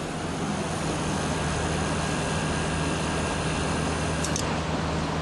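Fujitsu window air conditioner running, its fan blowing steadily over a low compressor hum, with a short tick about four seconds in.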